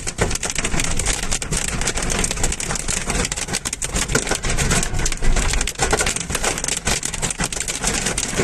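Hailstones and heavy rain pelting down: a dense, continuous clatter of many hard hits over a steady rush of rain.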